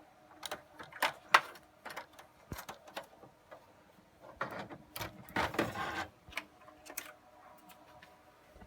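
Clicks, knocks and scraping from a server motherboard being handled and lifted out of its chassis. It is a string of sharp separate clicks, the loudest about a second and a half in, with a longer scrape about halfway through.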